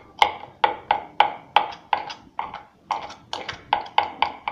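Kitchen knife chopping blanched pistachios on a cutting board: quick, regular chops, about three a second, each a sharp knock of the blade against the board.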